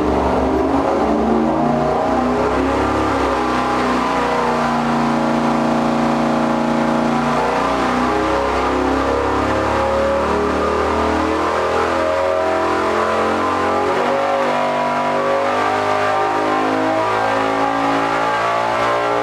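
Dick Landy 484-cubic-inch Hemi V8 with dual four-barrel carburetors running loud under load on an engine dyno. Its pitch holds and then shifts in steps, and it starts to fall near the end as the run winds down.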